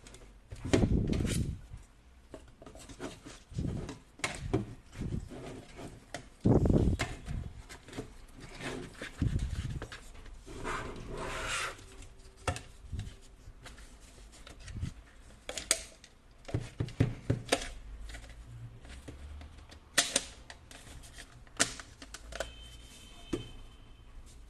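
Irregular clicks, knocks and rubbing of objects being handled, with a few heavier thumps about a second in and again around six to seven seconds in.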